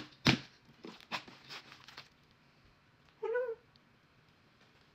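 Thick glitter slime being punched and squeezed by hand: two sharp wet pops right at the start, then softer crackling squelches for about two seconds. About three seconds in comes one short call that rises and falls in pitch.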